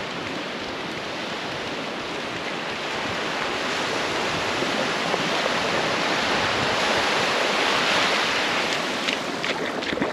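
Steady rushing noise of wind and small waves on the beach, swelling a little over the first eight seconds. Near the end, short splashes as someone wades into the shallows.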